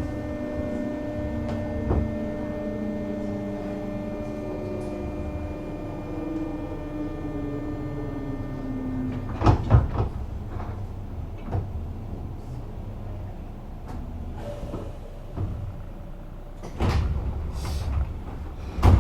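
JR West 201 series thyristor-chopper EMU braking to a stop. The chopper and traction-motor whine falls steadily in pitch and cuts off about nine seconds in, followed by short bursts of air hiss. Near the end the doors slide open.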